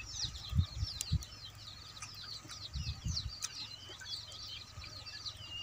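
Small birds chirping continuously in many short, high, mostly falling notes, with a few soft, dull low thumps in the first three seconds.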